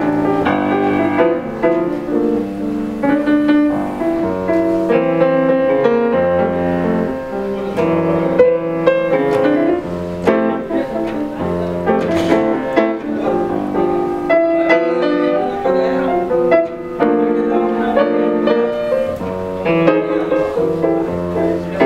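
Solo grand piano being played: a continuous stream of melody and chords.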